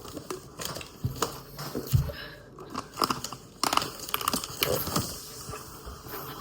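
Close-up biting and crunching on an ice cream treat, a run of sharp irregular crunches.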